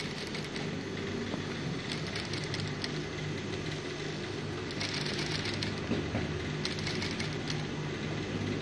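Industrial single-needle sewing machine stitching through woven fabric strips in several short runs, with a steady motor hum between them.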